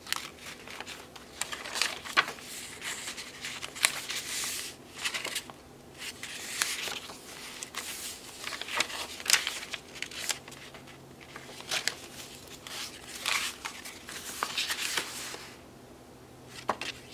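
Paper pages and cardstock tags of a handmade junk journal rustling and flapping as they are turned and handled, in irregular bursts with small sharp taps and clicks of paper.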